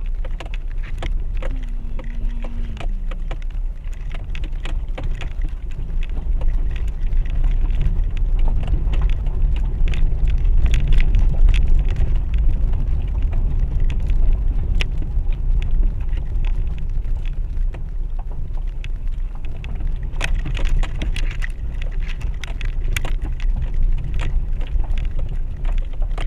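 Renault Duster driving down a rough, stony mountain dirt road, heard from inside the cabin: a steady low rumble from the tyres and running gear with constant small rattles and knocks from the stones and the suspension.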